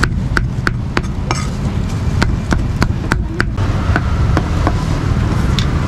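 Meat cleaver chopping cooked pork on a thick round wooden chopping block: about a dozen sharp knocks, two quick runs of about three a second, then a few sparser strokes, over a steady low rumble.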